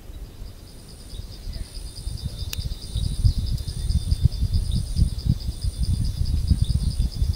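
Insects trilling steadily in a rapid pulsing chirp, with a second, higher insect buzz switching on and off about once a second. Wind buffets the microphone in low gusts that grow stronger about three seconds in.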